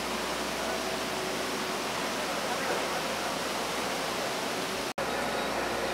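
Steady rush of flowing muddy floodwater, with faint voices in the background. The sound drops out for an instant near the end.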